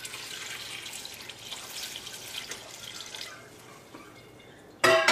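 Water poured into a stainless steel pan of vegetables and spice masala, splashing for about three seconds to add the cooking water for a sambar. Just before the end, a loud ringing metallic clink.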